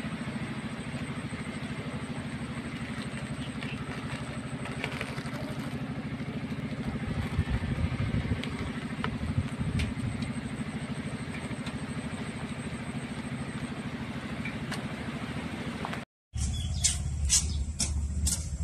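A steady low mechanical rumble with a fast, even pulse, like a small engine running. Near the end the sound cuts to a deeper hum with a few sharp clicks.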